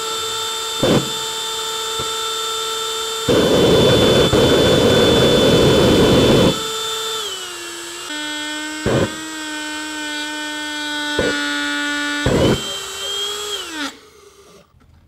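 Electric ducted fan motor running with a steady high whine, overdriven on a 16-volt battery although it can barely handle 12 volts. About three seconds in, a loud rushing roar joins it for about three seconds. Then the whine drops in pitch, with a few sharp pops, and the motor winds down and stops shortly before the end as it burns out and seizes.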